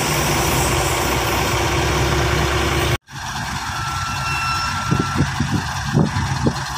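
Heavy diesel engine idling with a steady low hum, broken by a brief dropout about three seconds in. Shortly after, a thin high tone sounds for about a second, and a few short knocks come near the end.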